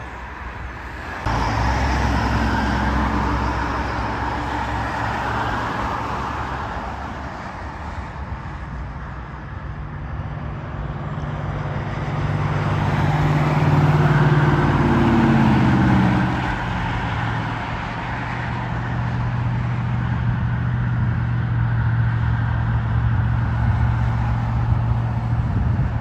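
Road traffic: a steady hum of car engines and tyres, loudest about halfway through as a pickup truck drives past, its engine note falling as it goes by.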